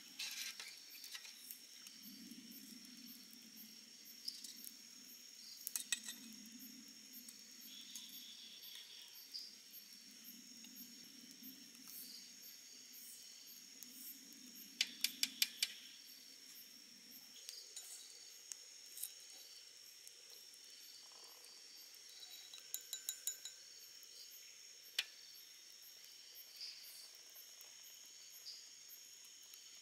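Crickets and other night insects chirring steadily in a high, unbroken tone. Over them come scattered sharp clinks of snail shells and utensils against a steel pot, with a quick run of about five clinks near the middle and another small cluster later.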